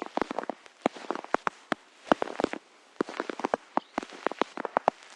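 Footsteps crunching through snow at a steady walking pace, each step a short cluster of sharp crackling crunches.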